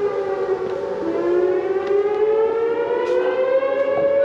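Outdoor warning siren wailing, its pitch dipping slightly and then rising slowly over a few seconds. It is sounding for an alert said to be going off across the whole nation that day.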